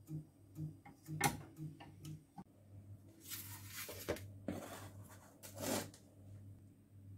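Cookware being handled: a sharp knock about a second in and a few lighter clicks, then several short scraping sounds as a metal cake pan is slid across the countertop, over a low steady hum.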